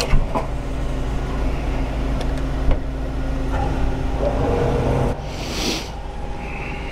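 Refuelling a motorcycle at a petrol pump. A clunk as the nozzle is lifted, then a steady low hum of the pump while petrol is dispensed into the tank. The hum stops about five seconds in, followed by a brief hiss.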